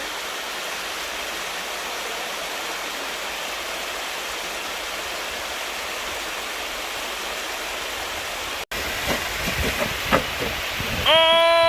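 Steady rush of stream water. After a sudden break near the end, low rumbling knocks follow.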